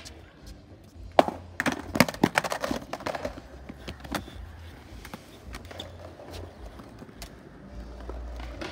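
Skateboard in a concrete bowl: a quick run of sharp clacks and knocks from the board and trucks, loudest about a second in, over the low rumble of the wheels rolling, which grows near the end.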